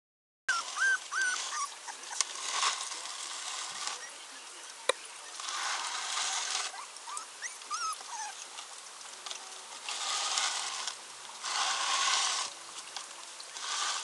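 American Pit Bull Terrier puppy whimpering: a quick run of short, high whines about half a second in, then a few fainter squeaks later. Between the cries come repeated bursts of scratching and rustling, and there is a single sharp click near the middle.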